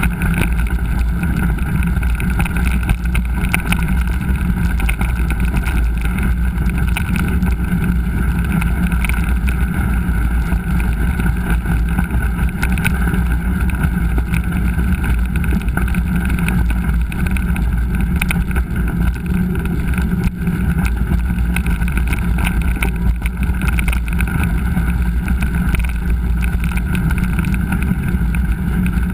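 Steady rumbling wind and riding noise picked up by an action camera on a moving mountain bike, with frequent small rattles and knocks.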